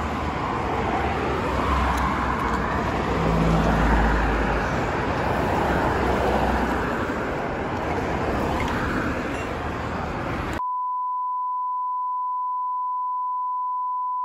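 Roadside traffic noise, a steady rumble and hiss. About ten seconds in it cuts off abruptly and a single steady high bleep tone takes over, a censor bleep laid over muted sound.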